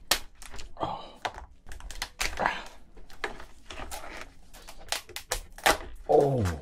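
Cooked giant crayfish shell being cracked and pulled apart by hand: a run of sharp cracks and crunches. A short vocal exclamation comes near the end.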